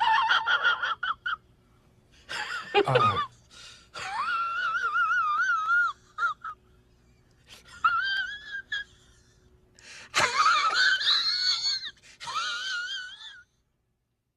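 Comedy ringtone: a high-pitched, squeaky wailing voice in about six bursts with a wobbling pitch, separated by short pauses.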